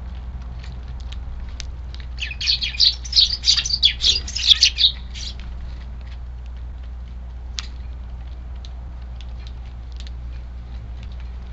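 A flock of Eurasian tree sparrows chirping in a dense, excited burst lasting about three seconds, over scattered light ticks.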